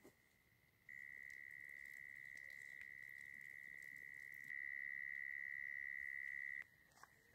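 A night insect's continuous high-pitched trill, one steady tone. It gets louder about a second in and louder again midway, then drops back to faint shortly before the end.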